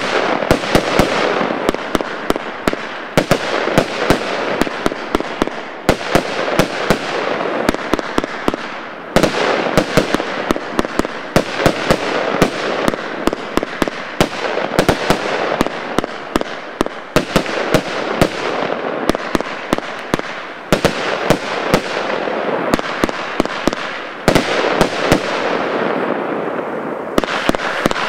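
Weco 7380 Mortal, an 80-shot compound firework cake, firing: a dense run of sharp bangs from the shots and aerial bursts over a constant crackle, surging afresh every few seconds.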